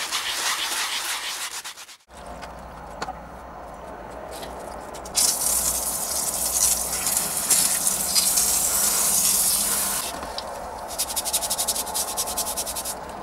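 Quick back-and-forth scrubbing of a metal part rubbed on a wet, soapy stone. After a cut, a hose nozzle sprays water with a steady hiss onto metal parts in a plastic tub for about five seconds. Near the end come fast rhythmic rubbing strokes as a part is scrubbed by hand.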